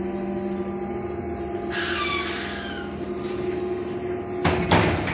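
Trolleybus interior with a steady electrical hum of several held tones. About two seconds in, a hiss of air with falling whistles. Near the end, two short loud bursts of hiss and knock as the pneumatic doors work.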